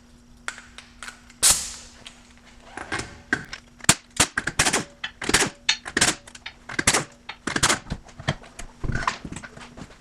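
Impact wrench hammering in quick short bursts as it breaks loose and spins off the wheel bolts, with sharp rattling cracks coming thick and fast from about three seconds in, after one loud burst near the start.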